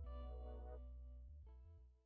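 Soft background music of sustained pitched notes, with a change of chord about one and a half seconds in, fading out at the very end.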